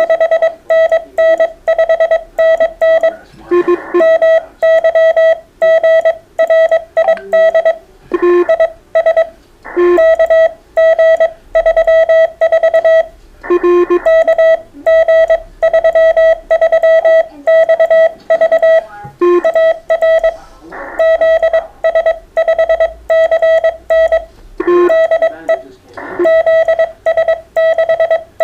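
Morse code (CW) on an amateur radio: a single mid-pitched beep keyed rapidly on and off in dots and dashes, sent at a fast, steady speed. In a few short pauses, fainter Morse tones at other pitches come through.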